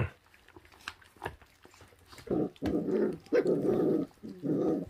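26-day-old puppies growling in a run of short, rough bursts while tearing at a slab of raw rib meat, starting about halfway through, after a few faint clicks of teeth on meat and bone.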